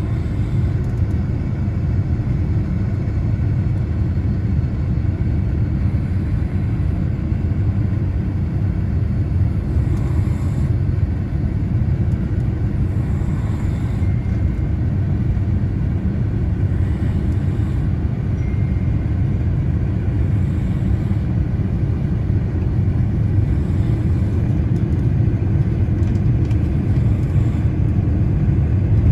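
Steady low rumble of engine and airflow noise heard inside the cabin of a Boeing 787-9 airliner on final approach.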